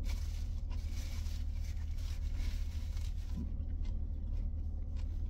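A person chewing food with her mouth closed, soft mouth noises over a steady low hum inside a car's cabin.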